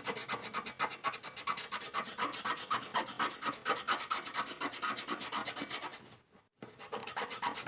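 Quick back-and-forth scrubbing strokes on a part of an old box camera being cleaned, several strokes a second, with a short pause about six seconds in.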